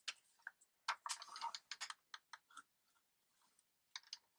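A sliding-blade paper trimmer being run along its track: faint clicks and short scratchy rasps as the blade is pushed across the paper. The blade is getting dull on one side and not cutting cleanly.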